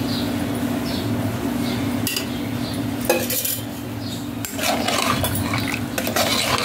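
Steel ladle scraping and clinking against the inside of a pressure cooker pot while stirring pieces of mutton in oil. A sharp clank about three seconds in, with heavier scraping in the last couple of seconds.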